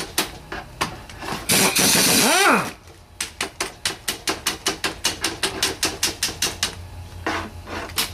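Air impact wrench on stubborn 13 mm bolts: a loud burst about a second and a half in that winds down in pitch as the trigger is released, and a shorter burst near the end, with fast, regular clicking between them.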